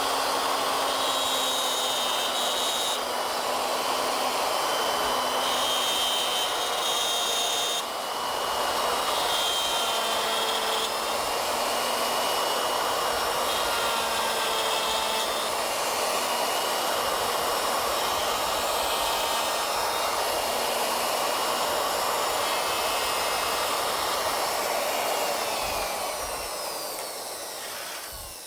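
Wood router with a 3/8-inch straight cutter running steadily, plunge-cutting a mortise in a wooden leg on an ornamental mill. Over the last few seconds it is switched off and winds down, its whine falling.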